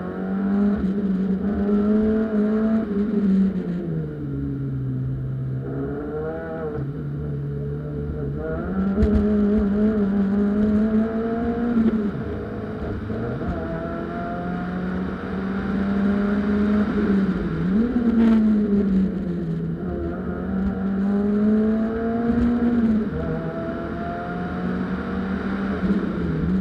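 Peugeot 206 1.6-litre cup car's engine under hard driving, heard from inside the car: it revs up through the gears and eases off again several times, with a few short knocks from the car.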